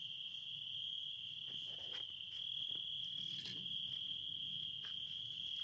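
Crickets calling in a steady, unbroken high trill, with a few faint clicks and rustles.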